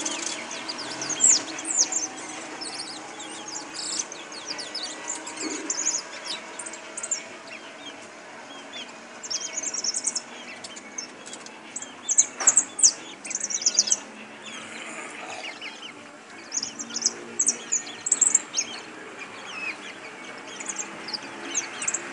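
A jilguero (a finch kept as a caller bird) singing: long runs of quick, high twittering chirps in bursts, with short pauses between phrases. A single sharp click sounds about halfway through.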